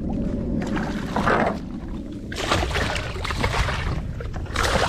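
Hooked mako shark thrashing at the surface beside the boat's hull, throwing water in three noisy splashing bursts over a steady low rumble.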